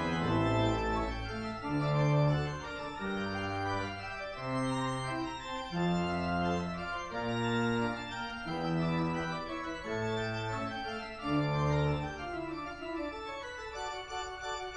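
Church organ playing a Baroque piece: sustained chords over a bass line that moves in steady steps of about a second each. The bass drops out near the end, leaving the upper voices.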